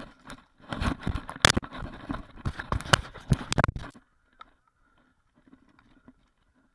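Hurried footsteps on the ground with gear rustling and knocking, an irregular run of loud knocks for about four seconds that then drops to a few faint sounds.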